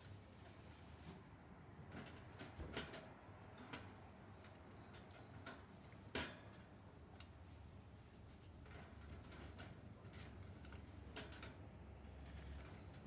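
Scattered light clicks and taps of a green-cheeked conure's beak and feet working at its cage, over quiet room tone. The sharpest click comes about six seconds in.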